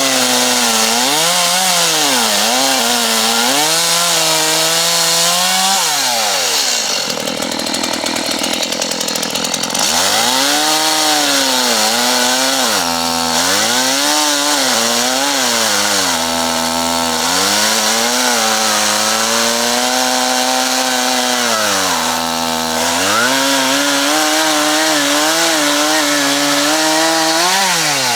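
Chainsaw running at high revs and cutting wood, its engine note repeatedly dipping under load and climbing back, then falling away as the throttle is released near the end.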